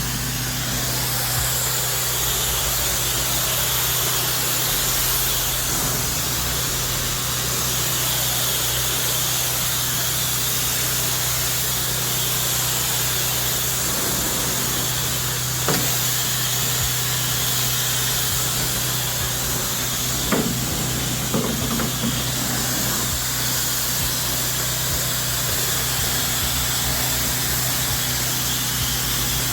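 Pressure washer running steadily, water hissing from the spray nozzle, with a few brief knocks around the middle.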